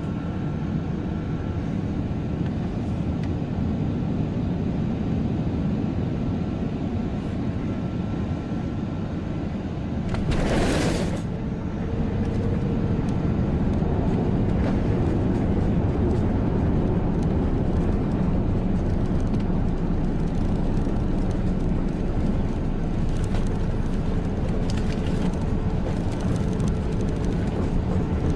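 Steady rumble of engines and airflow heard inside the cabin of a British Airways Airbus A380 landing. About ten seconds in there is a brief loud rushing noise, after which the rumble stays louder with a faint steady hum.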